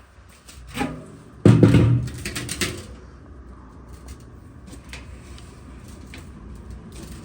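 A new drive belt being worked onto a clothes dryer's drum by hand: rubbing and scraping with a few knocks in the first three seconds, then a fainter steady rubbing with small clicks.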